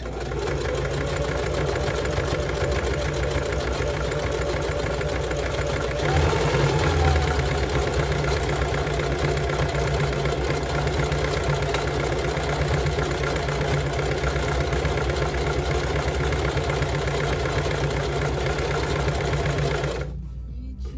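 Singer Heavy Duty sewing machine running steadily at speed, its needle stitching through braided climbing rope with a fast, even rhythm. It gets a little louder about six seconds in and stops about a second before the end.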